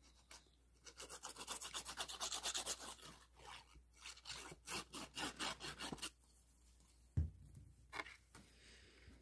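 Quick, scratchy rubbing of a fine-tip glue bottle's nozzle drawn back and forth across paper as glue is laid down, from about a second in until around six seconds. Then a dull thump as the glued paper piece is pressed onto the card, and a lighter tap.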